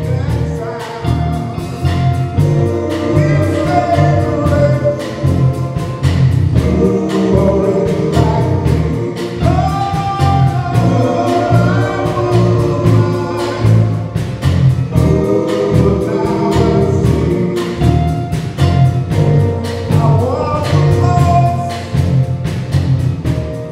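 Men's gospel vocal group singing together in harmony over instrumental backing with a steady beat.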